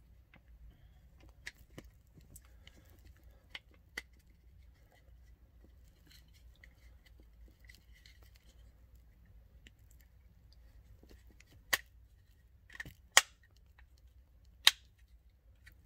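Small plastic clicks and snaps from a truck's HVAC blend door actuator being handled and snapped into place. Faint scattered ticks at first, then several louder, sharp snaps in the last few seconds.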